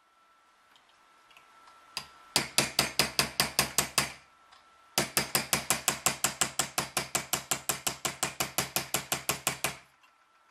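Hammer striking a steel dapping punch into folded copper sheet clamped in a bench vise (air chasing), as the punch sharpens the walls of the dents. One strike about two seconds in, then two quick runs of ringing metal taps, about five or six a second; the second run is longer and stops shortly before the end.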